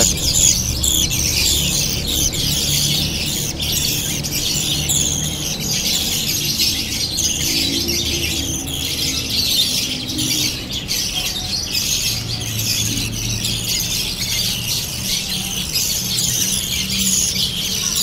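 Budgerigar chicks giving a continuous stream of rapid, high-pitched, raspy begging squeaks while being hand-fed from a syringe.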